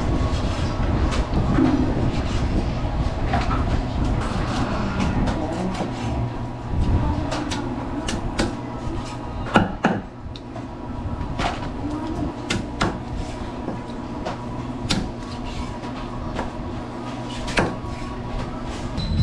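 Cleaver chopping a raw chicken on a wooden chopping block: irregular sharp knocks of the blade striking the wood, the loudest about ten seconds in, over a steady low hum.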